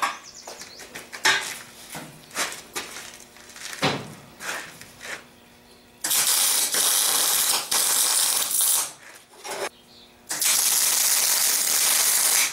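Light metal knocks and clicks as steel pieces are handled on a steel table, then a wire-feed (MIG) welder's arc crackling steadily in two runs, about three seconds and then two seconds long, tack-welding steel standoffs to a plate.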